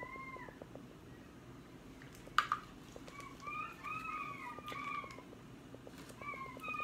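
An animal calling in runs of short, arched, pitched calls, several in quick succession in the middle and again near the end. A single sharp crackle sounds about two and a half seconds in.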